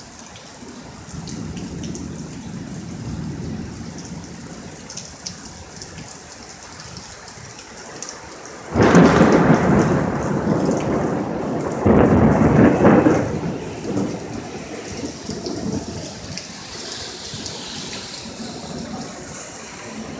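Thunder with steady rain falling. A low rumble comes in the first few seconds, then a sudden loud crack about nine seconds in, a second loud peal about three seconds later, and then the rumble fades away.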